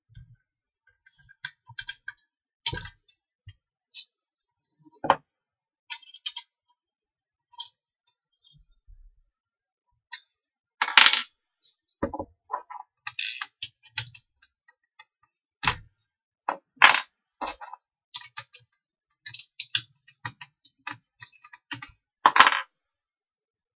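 Scattered clicks, taps and knocks of a wooden block and the metal parts of a bench drill stand being handled as the block is taken off the stand's base, with several sharper knocks in the second half. The drill itself is not running.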